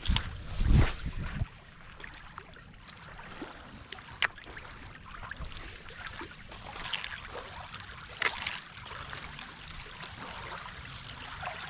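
Small waves lapping on a gravel shoreline, a steady watery wash. A low rumble in the first second and a half, a single sharp click about four seconds in, and two brief high swishes around seven and eight seconds.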